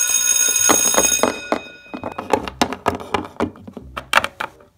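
A school bell rings with a steady high tone and stops about a second in. Then small plastic toy figures tap and knock on a hard tabletop as they are hopped about by hand, in a quick irregular series of light clicks.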